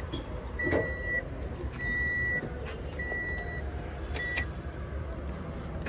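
A vehicle's electronic warning beeper sounding a steady high beep about half a second long, four times at an even pace of roughly one beep every 1.2 seconds, then stopping. A constant low rumble and a few light clicks run underneath.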